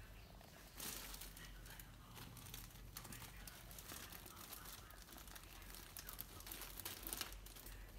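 Kitten moving about inside a fabric cat play tunnel, the tunnel's fabric rustling faintly in short irregular bursts, with a louder rustle about a second in.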